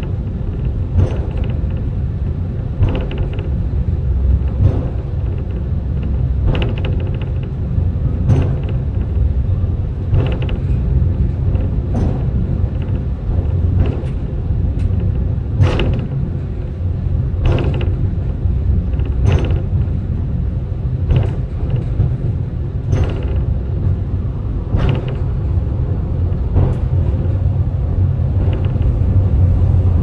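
Takao-san funicular cable car running downhill: a steady low rumble of the moving car, with a short creaking click about every two seconds as it rolls along the track.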